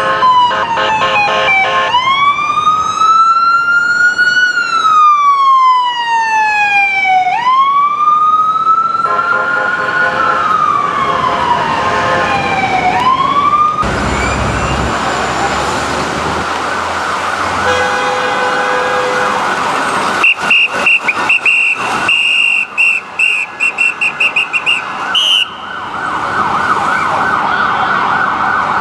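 Ambulance electronic siren: a slow wail rising and falling several times, switching about halfway through to a fast yelp. Near the end it is broken into short, choppy blasts.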